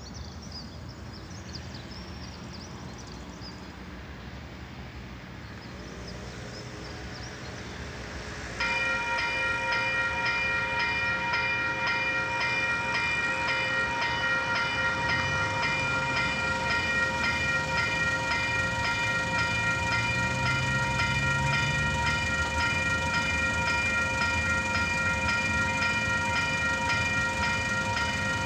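Railway level-crossing warning bell starts suddenly about eight seconds in and keeps ringing in rapid, even strokes, the alarm that a train is approaching the crossing. Before it comes on, a low, steady rumble of street traffic.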